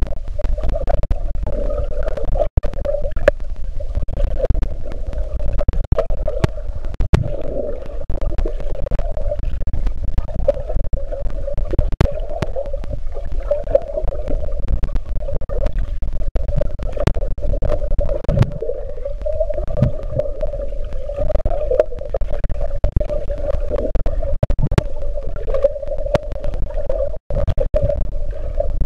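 Underwater sound picked up by a camera submerged in a pond: a muffled low rumble with a steady, slightly wavering hum and scattered small clicks and knocks.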